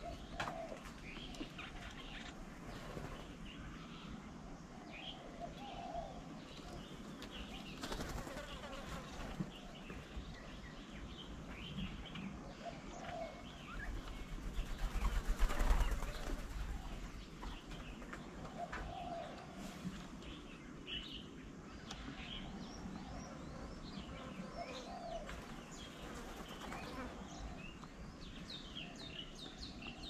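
Birds chirping and twittering in short high calls, with a low dove coo every several seconds. About halfway through comes a louder fluttering rush of wingbeats close by.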